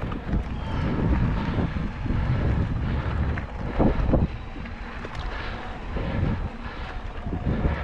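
Mountain bike rolling over a dirt trail: a steady rumble of tyres and wind on the microphone, with a few sharp knocks and rattles from bumps, the loudest about four seconds in.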